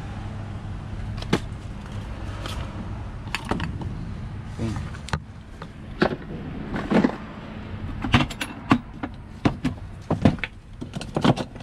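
Plastic Milwaukee Packout tool case being unlatched and opened, then hand tools clicking and clinking in its tray as they are sorted through: a series of sharp knocks and rattles that come thicker in the second half. A steady low hum sits underneath.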